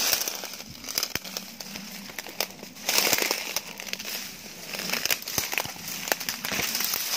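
Dry undergrowth crackling and rustling: dead grass, leaves and twigs brushed aside and crunched underfoot by someone pushing through scrub on foot, with many small sharp snaps. It is loudest about three seconds in and again near the end.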